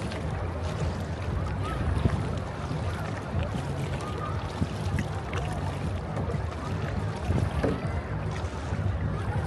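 Steady low outdoor rumble of wind and sea at a beach, with faint distant voices.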